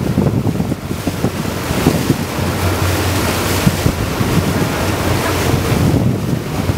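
Wind buffeting the microphone on a boat on open water, over a low steady boat-engine hum and water rushing.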